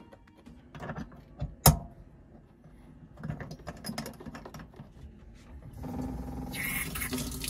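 Clicks and handling of small metal faucet parts, with one sharp loud click, as a galley tap spout with a new O-ring is refitted. About six seconds in, the tap is turned on and water runs from the faucet into a stainless-steel sink to test the repair.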